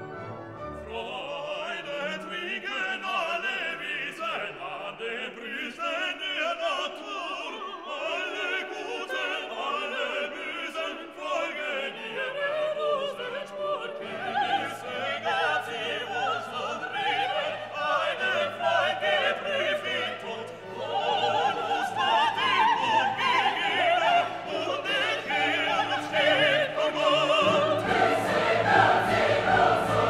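Background classical music: orchestra with operatic, choral singing.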